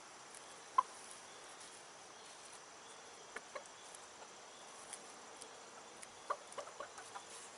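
A few soft, short clucks from young chickens, one about a second in and a small run of them near the end, over a faint steady background of insects.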